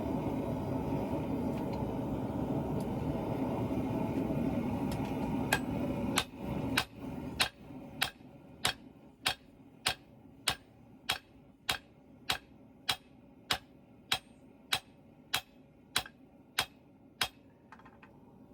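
A steady roaring rush drops away about six seconds in. It is followed by about twenty evenly spaced hammer blows on steel, a little under two a second, which stop shortly before the end.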